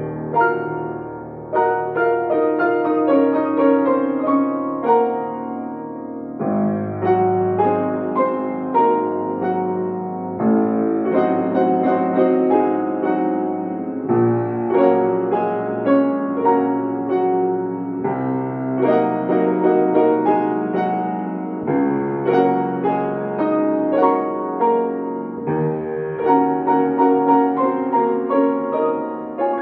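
Grand piano played solo: a running melody of quick notes over bass notes that change about every four seconds.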